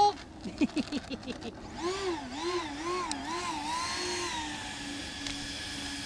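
Twin 64 mm electric ducted fans of an RC F-22 jet whining at low throttle on the ground. The pitch jabs up in several quick blips, then rises and falls a few times before settling to a steady whine.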